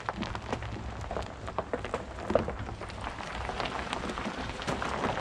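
Footsteps crunching on gravel: irregular crackling steps over a low steady rumble.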